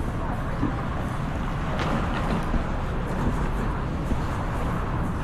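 Steady low rumble of outdoor urban ambience, like road traffic, with a brief higher-pitched sound about two seconds in.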